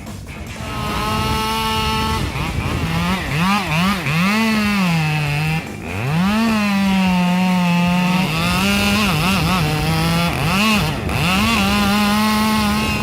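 A two-stroke chainsaw running at high revs. Its pitch holds for a moment, then dips and climbs again many times as the engine is loaded and picks up, as when cutting through wood.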